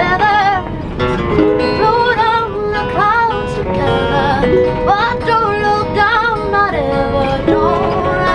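A singer with a wavering vibrato sings a song live over a strummed ukulele and an acoustic guitar.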